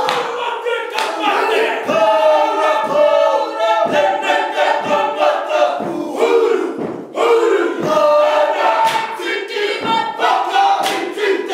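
A Māori performing group of men and women chanting and singing together in a haka-style piece, with shouted calls and a thud about once a second.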